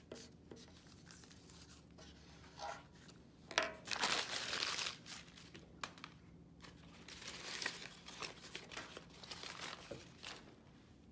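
Paper being crumpled and torn by hand in several irregular bursts, loudest about four seconds in and again near the end.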